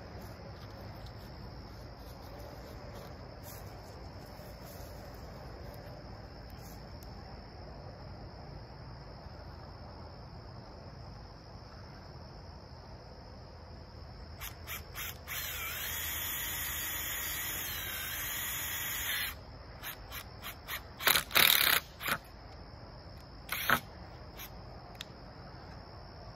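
Cordless drill driving a screw into a wooden border board: a few clicks, then the motor runs steadily for about four seconds past the middle, followed by several short, louder bursts of the trigger as the screw is snugged. Crickets chirp steadily throughout.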